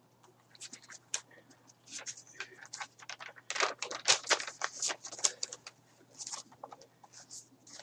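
Light, irregular clicks and scratchy rustles of hands working at a desk, over a faint steady low hum.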